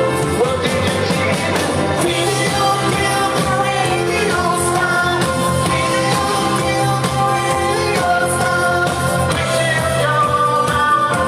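Live band playing a rock song with a singer, loud and steady.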